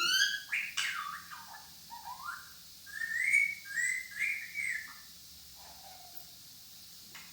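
Pet parrot whistling and calling: a quick run of rising whistled notes at the start, then a few arched calls a few seconds in, going quiet in the last couple of seconds.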